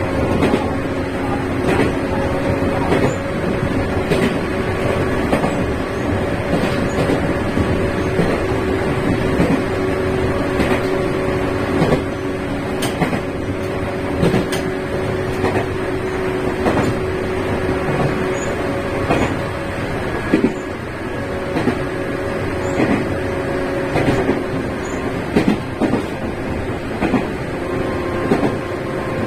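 Joshin Electric Railway train running, heard from inside: a steady hum holding a few pitches that shift partway through, with frequent irregular knocks and clicks.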